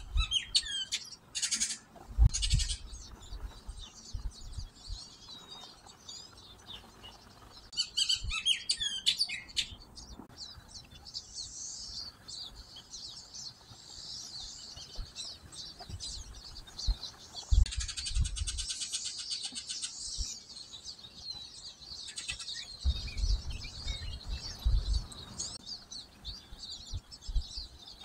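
Several songbirds chirping and singing in an overlapping chorus, with a loud fast buzzy trill about two-thirds of the way through. Brief low rumbles come a few times underneath.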